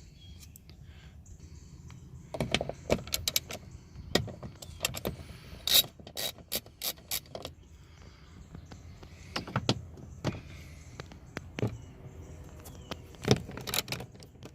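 Metal clicks and knocks of hand tools being worked on the door's 10 mm bolts, in irregular spurts, in one run several clicks about a third of a second apart, as a ratchet and socket make.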